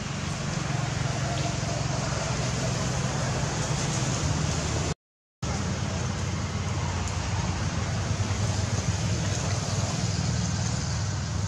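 Steady low rumble with hiss, like a motor or road traffic running, cut off for a moment about five seconds in.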